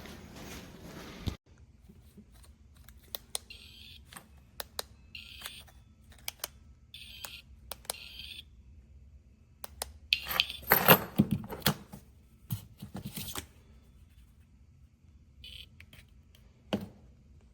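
Wsdcam 113dB wireless motorcycle vibration alarm giving short, high-pitched chirps, about five of them spaced irregularly, among small clicks. About ten seconds in comes a louder stretch lasting a few seconds.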